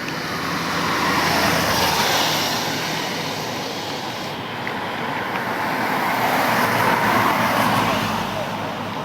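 Road traffic driving through floodwater: tyres throwing up water in a steady hiss that swells twice as vehicles pass.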